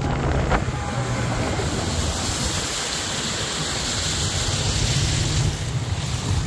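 Motorboat engine running low and steady, with a hiss of wind and water over it.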